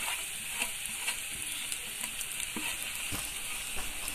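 Grated coconut frying in coconut oil in a kadai, a steady sizzle, with a few light taps and scrapes as the rest of the coconut is scraped out of a steel bowl into the pan.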